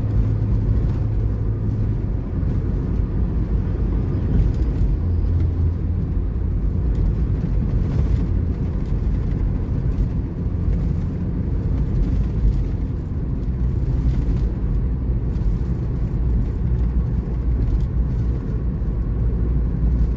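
Steady in-cabin road noise of a car cruising on a toll road: a low, continuous rumble of tyres on bare concrete pavement, with the car's engine humming underneath.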